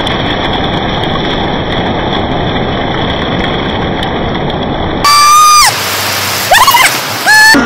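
Steady wash of surf and wind noise on a beach. About five seconds in, it is cut into by three loud, high-pitched sliding cries, the first falling away at the end.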